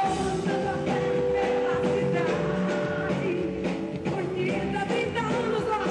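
Live axé band music through a concert sound system, with a woman singing into a microphone over the band.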